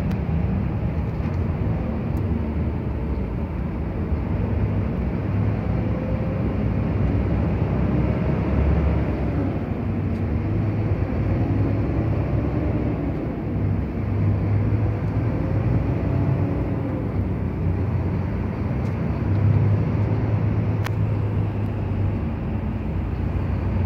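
Truck engine and road noise heard from inside the cab while driving: a steady low drone with a faint wavering hum above it.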